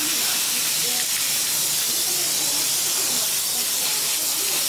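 Garden hose nozzle hissing steadily, a spray of water played over a man's head and hair.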